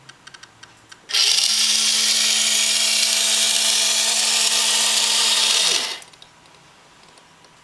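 Electric sail winch of a model sailing ship running, whirring steadily with a constant hum as its drum winds the line for about five seconds. It starts abruptly about a second in and winds down with a falling pitch near six seconds. A few faint clicks come before it starts.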